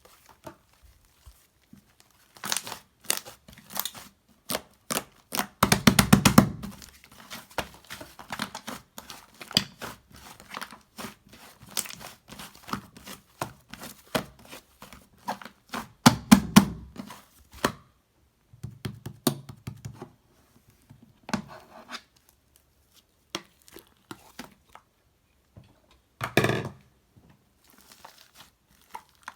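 Slime being squeezed and stretched by hand: runs of sticky crackling and popping clicks, with denser, louder squishing bursts about six, sixteen and twenty-six seconds in.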